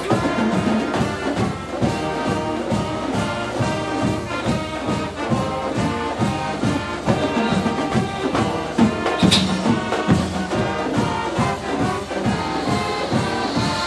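Brass band music playing with a steady beat.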